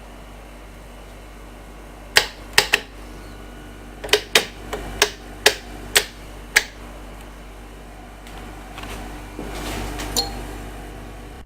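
A Toyota 8001 electric free-arm sewing machine being handled, giving a series of about ten sharp mechanical clicks over a steady low hum. Three quick clicks come first, then seven more spaced about half a second apart. A louder rushing swell with one last click follows near the end.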